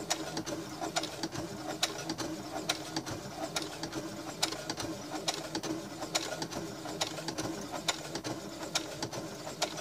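Computerized household sewing machine stitching slowly through leather: a steady motor hum with a sharp needle click about two to three times a second, one per stitch.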